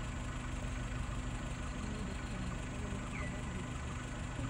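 Safari vehicle's engine idling steadily, a low even hum, with a brief high chirp about three seconds in.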